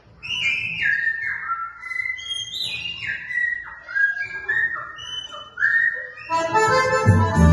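Bird-like whistled phrases of short high notes, each sliding downward in pitch. About six seconds in, a piano accordion comes in with chords and bass.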